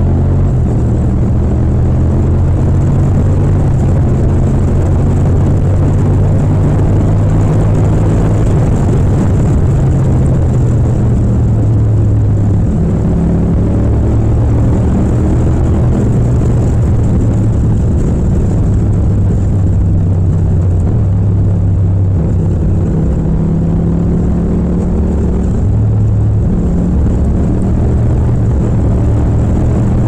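Yamaha MT-07's 689 cc parallel-twin engine running hard at highway speed from the rider's seat, shifting up from fourth to sixth gear in the first half and then holding a steady cruise.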